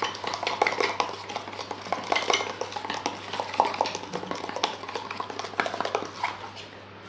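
Metal spoon stirring a thick white paste in a stainless steel tumbler, scraping and clinking against the sides in quick, uneven strokes, several a second.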